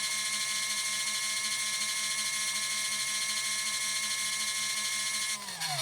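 Spin dryer of a 12 V portable foldable washing machine running, its motor giving a steady whine with a slight regular pulsing. Near the end the pitch falls as the drum spins down and stops.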